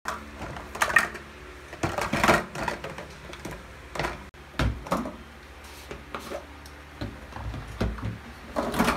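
Plastic baby bottles, caps and containers knocking and clattering against each other and a plastic basin as they are picked up and moved, in irregular clicks and knocks with a few duller thumps.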